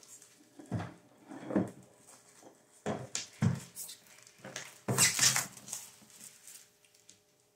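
Clear plastic shrink wrap on a cardboard board game box crinkling and tearing as it is ripped off by hand. It comes in several short bursts, the loudest about five seconds in, with the box shifting on the table.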